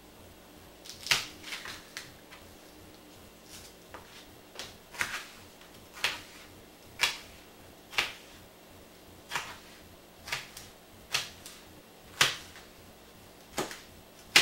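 Kitchen knife cutting bell pepper on a plastic cutting board. The blade knocks sharply against the board at irregular intervals, roughly once a second.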